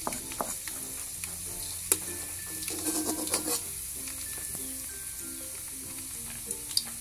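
Minced garlic sizzling steadily in hot oil in a wok. Over it come a few sharp clicks and scrapes of a cleaver pushing the garlic off a wooden chopping board, mostly in the first two seconds.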